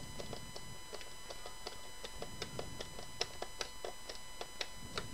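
Hand screwdriver driving screws into the plastic housing of a Davis VantageVUE weather station: a run of small, fairly quick clicks, with a few sharper ones in the second half.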